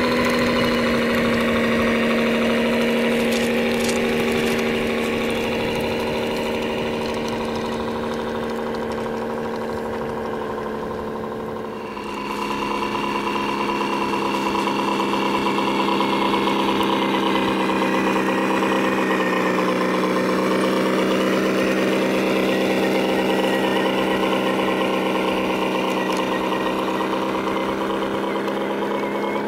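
Radio-controlled construction machine's motor running steadily with a droning hum. About twelve seconds in the sound dips briefly, then comes back louder at a slightly lower pitch.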